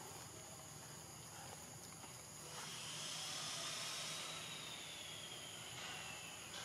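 Insects buzzing in a steady high hiss. About two and a half seconds in, a louder buzzing call swells in; its pitch rises slightly and then falls, and it fades away near the end.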